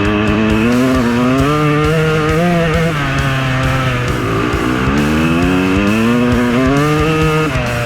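Freshly rebuilt KTM 200 single-cylinder two-stroke dirt bike engine revving up under acceleration: the pitch climbs for a couple of seconds, drops, then climbs again about four seconds in and drops near the end. Background music plays under it.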